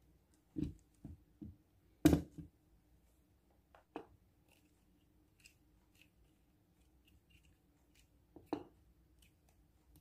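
Flexible octopus tripod with segmented plastic legs being handled and bent: a scatter of irregular knocks and clicks, the loudest about two seconds in, over a faint steady hum.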